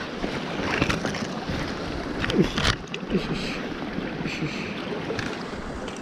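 Mountain stream water rushing steadily over rocks close by, with a few brief rustles and knocks about two and a half seconds in.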